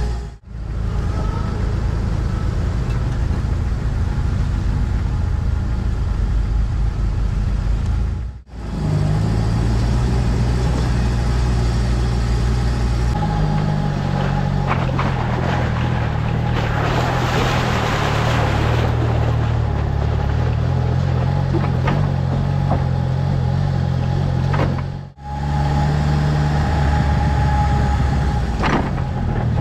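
Jeep Wrangler TJ driving slowly along a snowy dirt trail: a steady low engine drone with tyre and road noise. The sound drops out abruptly twice, about a third of the way in and again near the end. About halfway through, a loud hiss rises over it for a couple of seconds.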